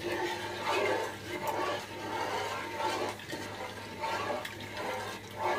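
Wooden spatula stirring thick, boiled-down milk in a metal pan: repeated wet swishing and sloshing strokes.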